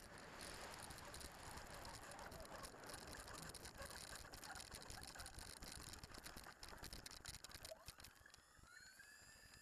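Faint onboard audio from a model jet airliner rolling over grass: a rough hiss broken by many sharp clicks and rattles as the airframe and landing gear jolt over the bumps. Near the end a whine rises and then holds steady, the electric ducted fans spooling up.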